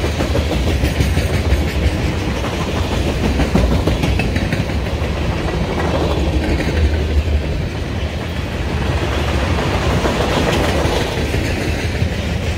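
Freight cars of a mixed freight train rolling past, tank cars and a covered hopper: a steady, loud rumble with the clickety-clack of steel wheels over the rail joints.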